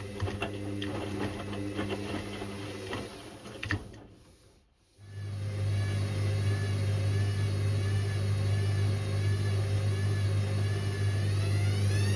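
Indesit IWC6165 washing machine's drum motor humming with light clicks, stopping briefly about four seconds in, then starting again with a steady hum and a wavering whine. Near the end the whine begins to rise as the drum speeds up.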